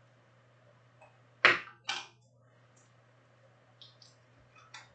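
Two sharp clicks about half a second apart, then a few lighter ticks near the end: small hard objects handled on a tabletop.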